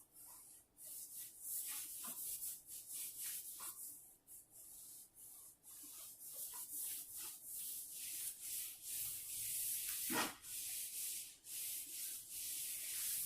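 Repeated hand rubbing strokes on a maple hardwood floor, an irregular hiss that becomes more continuous in the second half, with one heavier stroke about ten seconds in.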